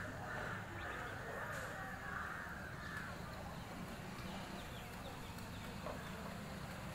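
Outdoor background noise with a low steady rumble and faint, scattered bird chirps.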